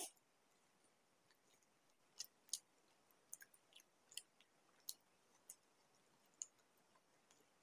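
Eating sounds: faint, scattered crisp clicks and crackles of a fried samosa being handled and chewed, roughly one every second.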